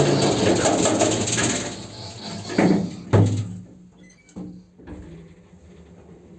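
ShchLZ passenger elevator's automatic sliding doors running with a loud rattle, then banging shut twice about two and a half and three seconds in, followed by a faint steady hum. The rattle and squeak come from a poor door drive that makes the doors shake and run unevenly.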